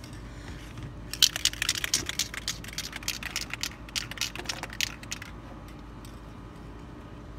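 Aerosol can of hydrographic activator being shaken, its mixing ball rattling in quick, irregular clicks. The rattle starts about a second in and stops about five seconds in.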